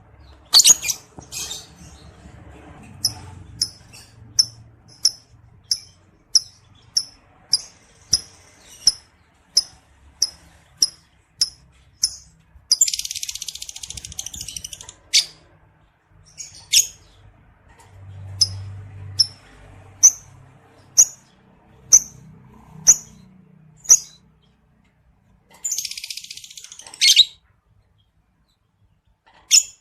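Male lovebird chirping: short, sharp, high chirps about three every two seconds, broken twice by a long harsh chattering trill of about two seconds. That trill is the lovebird's "ngekek", the song of a male in breeding mood.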